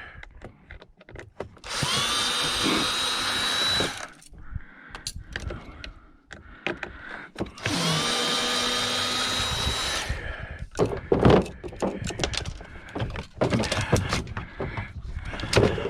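Electric drill-driver spinning up and running twice, about two seconds each time, backing screws out of a dishwasher motor's housing. Clicks and knocks of parts being handled follow.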